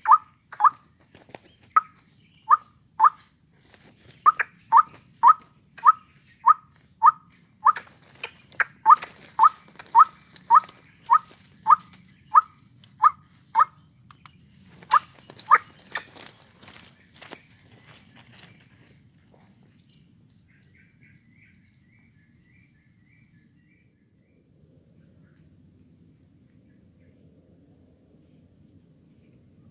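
White-breasted waterhen calling: a long run of short, rising croaks at about two a second, which stops about sixteen seconds in. A steady high buzz of insects runs underneath throughout.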